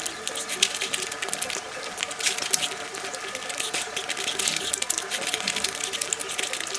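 Close-miked chewing and mouth sounds from eating by hand: quick, irregular wet clicks and smacks, along with fingers mixing rice and curry.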